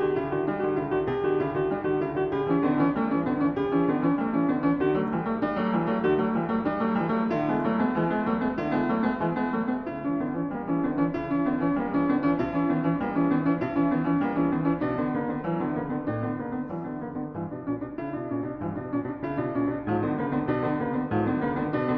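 Background music played on piano, a steady run of notes.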